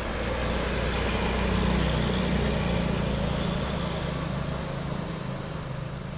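Big tour bus driving past close by: its engine note swells to loudest about two seconds in, then fades with the pitch sliding slightly down.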